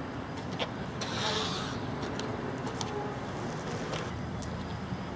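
A BMX bike rolling past on concrete as the rider pushes himself along with one foot, his shoe scuffing the pavement about a second in, with a few light clicks, over a steady low rumble.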